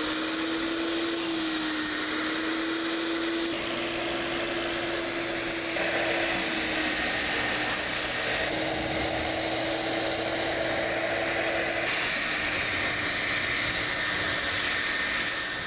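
Portable carpet spot cleaner (Sanitaire) running, its vacuum motor giving a steady whine and hiss as the upholstery tool sprays hot water and cleaner into fabric and sucks it back up. The tone and hiss shift a few times as the tool moves over the fabric.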